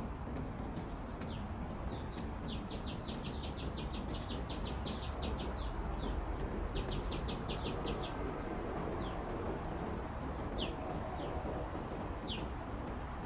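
Small songbirds calling: single high down-slurred chirps, and two runs of rapid short notes a couple of seconds in and again past the middle, over a steady low background rumble.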